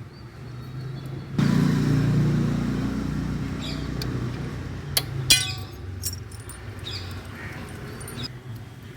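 A motor vehicle engine running close by, starting loud about a second and a half in and slowly fading away, with a couple of sharp metal clinks around the middle over steady traffic hum.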